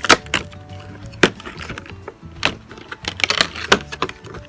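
Cardboard advent calendar door being pushed and torn open: a run of sharp clicks and cracks, more of them towards the end.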